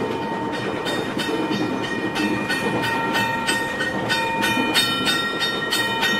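Disneyland Railroad steam train rolling along the track, its wheels clacking over the rail joints about three times a second, with a steady rumble. Several high, steady ringing tones come and go over the clacking.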